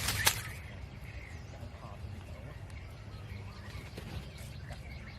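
Faint bird chirps over a steady low rumble, with one sharp click just after the start.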